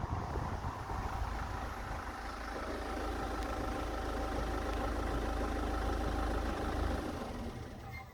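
Ford Mondeo 2.0-litre diesel engine idling with a steady low rumble and a few steady higher tones. The rumble drops out about seven seconds in and the rest fades near the end as the engine shuts down.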